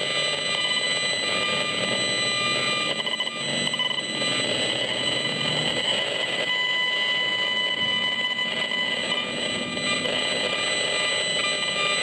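Gigahertz Solutions HFE 35C HF analyser's built-in speaker playing the microwave signals it is picking up as a steady electronic buzz and hiss with several high, unchanging whining tones.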